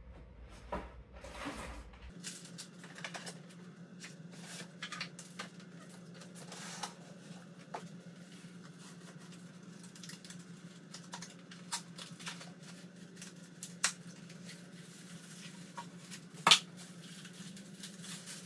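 Cardboard box and plastic packaging being handled and unpacked: scattered rustles, taps and clicks, with one sharp snap near the end, over a faint steady low hum.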